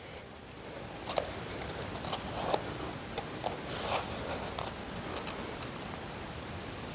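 Soft rustling of cloth with a dozen or so small, sharp clicks scattered through it, as the top corner of a fabric chroma key screen is handled and tied up.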